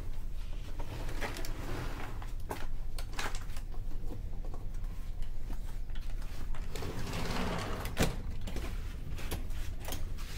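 Steady low drone of a ferry's engines heard inside a passenger cabin, with scattered light clicks and creaks throughout, and a short rustle ending in a sharp click about eight seconds in.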